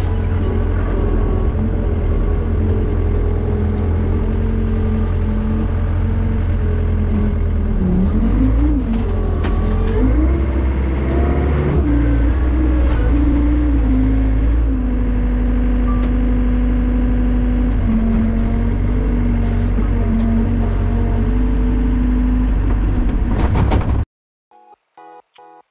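Komatsu SK07J skid steer's engine running, its pitch dipping and rising for a few seconds midway, then holding steady. The sound cuts off abruptly near the end, leaving faint pulsing music.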